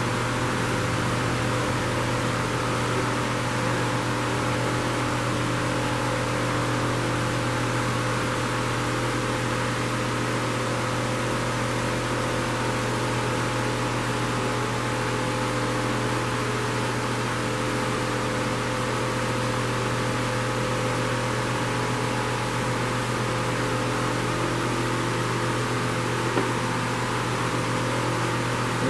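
Steady machine hum with a constant hiss, unchanging in level throughout.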